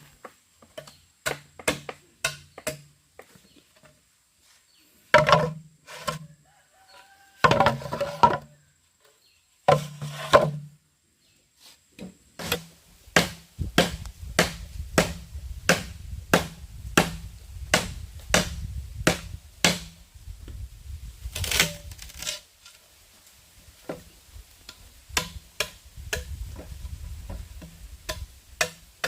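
Irregular series of chopping blows, a few heavier clustered strikes at first, then about two a second, with one louder, sharper strike about two-thirds of the way through.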